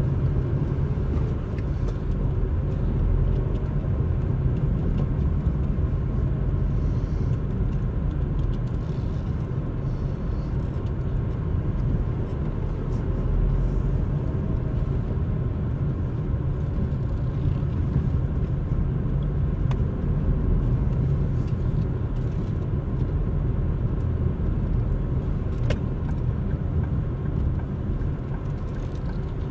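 Car driving at a steady pace: a continuous low rumble of engine and tyres on the road.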